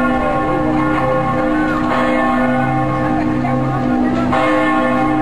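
Church bells ringing as wedding bells, several steady, overlapping tones sounding together.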